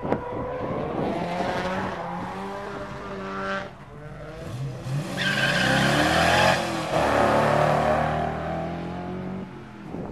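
Drift pickup truck's engine revving hard, its pitch rising and falling, with a brief dip about a third of the way in. From about halfway the tyres squeal loudly as the truck slides.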